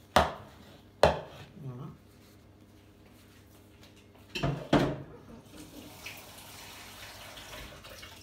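Sharp knocks of a mixing bowl on a wooden board as risen bread dough is turned out onto it: two about a second apart at the start, then two more close together about four and a half seconds in. After that comes a steady hiss.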